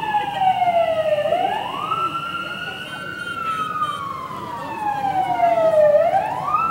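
Electronic vehicle siren wailing: its pitch slides slowly down over several seconds, then sweeps quickly back up, about a second in and again near the end.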